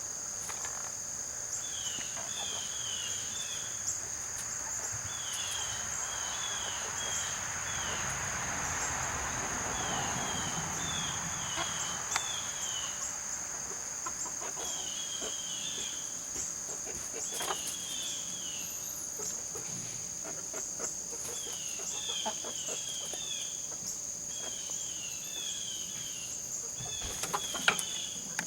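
Insects droning steadily at a high pitch, with short groups of quick high bird chirps recurring every couple of seconds and a few sharp clicks, the loudest near the end.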